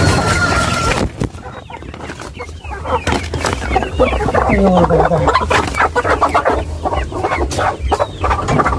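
Hens clucking and squawking in a wire cage as they are caught by hand, with a clatter of sharp knocks among the calls. It grows busy from about three seconds in.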